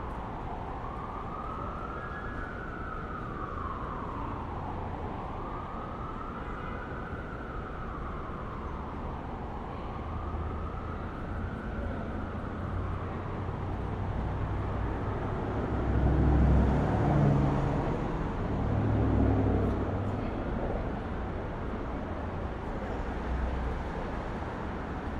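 City street traffic with an emergency vehicle's siren wailing slowly up and down, fading out about halfway through. A vehicle then passes close with a low rumble, the loudest part, over the steady hum of traffic.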